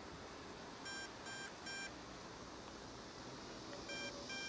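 Short electronic beeps from the MJX Bugs 2W drone's radio transmitter: three beeps about half a second apart about a second in, and another group starting near the end. This is the low-voltage warning for the drone's draining flight battery.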